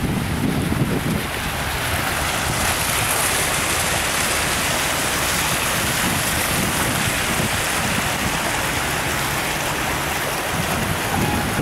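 Rows of small fountain jets splashing steadily into a shallow pool, a continuous spatter of falling water. Wind rumbles on the microphone at the start and again near the end.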